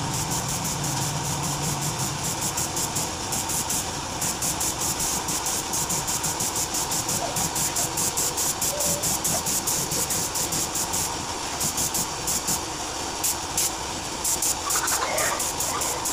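Gravity-feed air spray gun, fed compressed air through a hose, hissing as it sprays paint onto a car alloy wheel, the hiss pulsing rapidly and evenly. A low hum stops about two seconds in.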